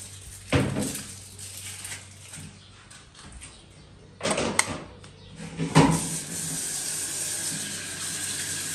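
A few knocks and clatters, then water starts running from a kitchen tap about six seconds in and keeps running steadily.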